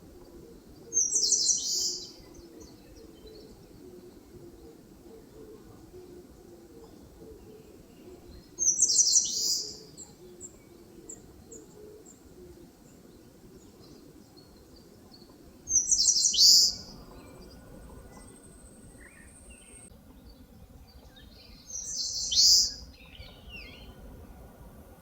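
Eastern crowned warbler singing: four short, high song phrases, about seven seconds apart, each ending in a quick downward sweep.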